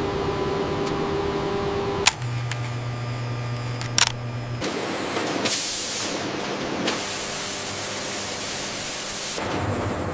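Steady hum and hiss of factory machinery that changes abruptly several times, with a sharp click about two seconds in and another about four seconds in.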